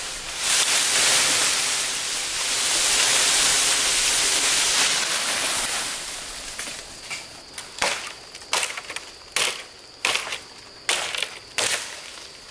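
A loud steady hiss for about the first half, then a run of five sharp knocks roughly a second apart over a faint, steady high-pitched tone.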